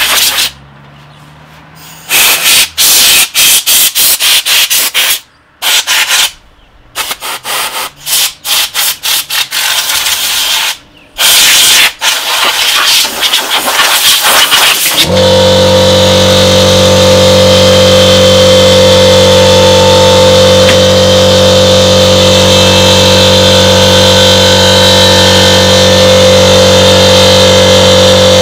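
Compressed air hissing from a hose nozzle in quick on-off blasts with short pauses, blowing dust out of a PC case. About fifteen seconds in, an air compressor's motor starts and runs steadily with a constant hum under the hiss, refilling its tank.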